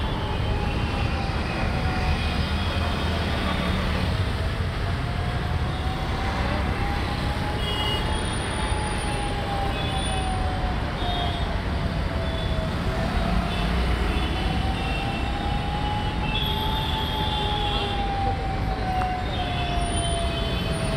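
Steady noise of heavy road traffic, trucks, buses and cars, passing on a flyover. Through it runs a faint single tone that slowly rises and falls, one full swing about every eight to nine seconds.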